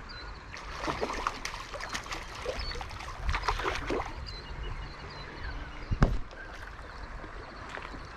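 Irregular splashing and sloshing in shallow river water as a hooked rainbow trout is brought in toward the net, over the running river, with one sharp knock about six seconds in.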